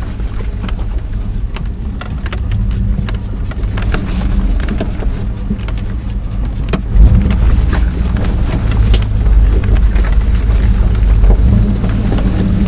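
A 1995 GMC Suburban's engine running low and steady as the truck crawls down a rocky trail, with tyres crunching over loose rock and scattered clicks and knocks. A heavier thump comes about seven seconds in, and the engine is a little louder after it.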